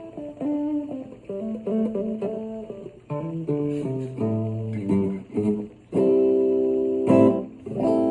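Guitar played through a Digitech RP6 multi-effects processor on its 'Clean Slapback' preset: a clean tone with a short echo. Picked single-note phrases give way to ringing chords, the first about six seconds in and another near the end.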